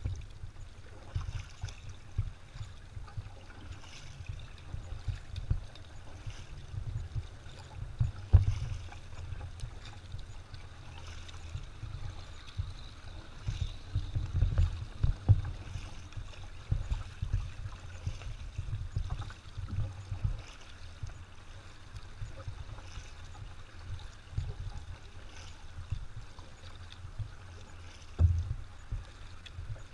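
Double-bladed kayak paddle dipping and pulling through river water in steady strokes, a soft splash about every second and a half, over a low, uneven rumble.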